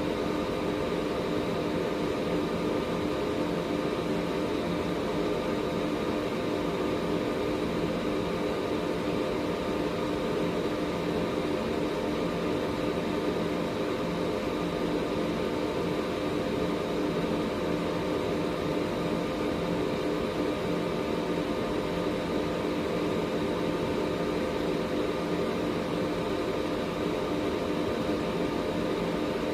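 Air purifier running steadily: an even rush of moving air with a constant hum of several tones under it and a faint high tone above.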